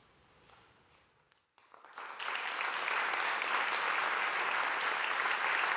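After about a second and a half of near silence, a concert audience starts applauding, swelling within half a second to full, steady clapping.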